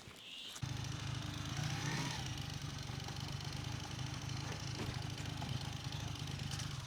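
A steady low mechanical drone like an engine running, starting suddenly just under a second in and cutting off abruptly near the end.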